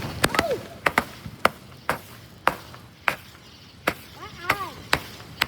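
Consumer fireworks going off in a series of sharp pops at uneven intervals, about two a second.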